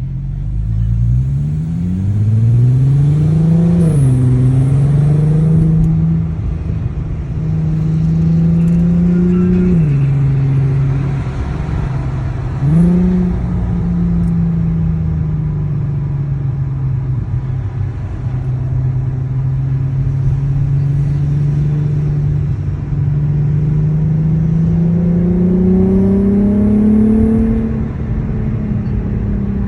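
Mk5 Golf R32's 3.2-litre VR6 engine pulling through the gears: the revs climb and drop sharply at gear changes about 4, 10 and 13 seconds in, then run fairly steady with a slow rise near the end. The gear changes are where the owner hears the rattle.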